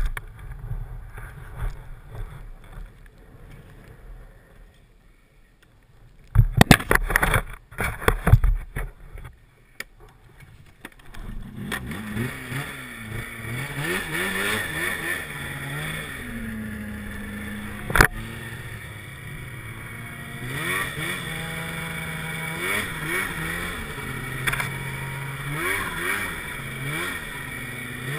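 Polaris snowmobile engine running, at first low and steady, then revving up and down again and again as the sled is ridden through deep snow. A burst of loud knocks comes about seven seconds in, and a single sharp click partway through the ride.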